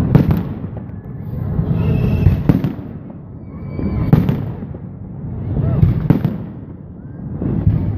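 Aerial fireworks shells bursting overhead, a sharp bang about every two seconds, each followed by a rolling low rumble and echo.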